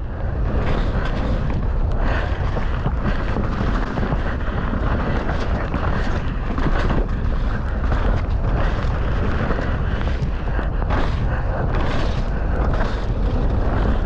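Wind buffeting a GoPro's microphone during a fast mountain-bike downhill run, a heavy steady rumble. Over it the bike rattles and knocks again and again as it runs over rough, wet trail.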